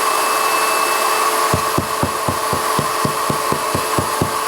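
Electric drill boring into a wall, running steadily. About a second and a half in, it starts a regular knocking, about four knocks a second, as the bit catches on wooden framing inside the wall.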